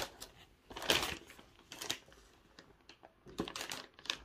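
Plastic wrapping of a packaged washing-machine cover crinkling and rustling as it is handled and turned over, in a few short, irregular rustles.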